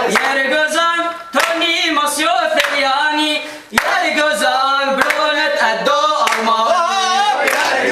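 A man's voice singing unaccompanied: a slow, ornamented melody with long, wavering held notes, broken by two short pauses for breath, about a second and a half in and again just before four seconds.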